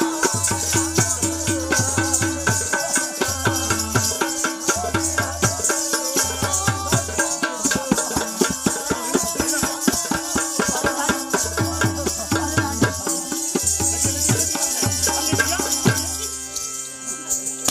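Live Himachali folk dance music: tabla played in a fast, even rhythm under harmonium, with a steady high shimmer of shaken percussion. The drumming stops about a second and a half before the end.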